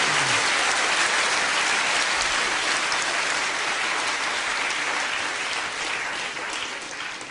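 Theatre audience applauding, tailing off near the end.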